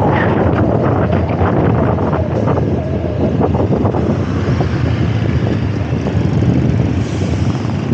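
Wind rushing over a helmet-mounted microphone during a motorbike ride, over the steady running of the motorbike and the traffic around it.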